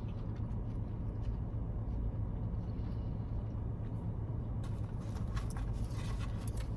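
Steady low hum inside a car. About two-thirds of the way in, a run of crisp rustling and clicking noises starts.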